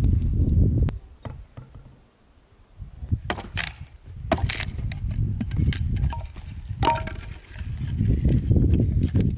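Hatchet chopping dry wood into kindling on a log: a run of sharp, irregular cracks and knocks beginning about three seconds in, with sticks splitting and splintering.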